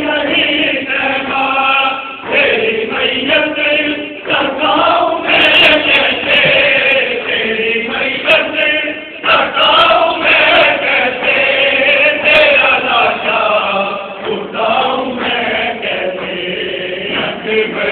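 A group of men chanting a Muharram mourning lament together, many voices on one rising and falling melody.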